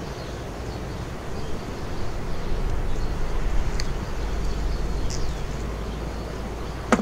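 Steady low rumble of outdoor background noise, with a few faint high chirps. A sharp click comes near the end.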